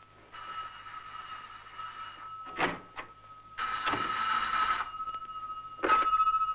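Telephone bell ringing in two bursts, the first about two seconds long and the second shorter, with a sharp knock between them. A louder knock comes near the end.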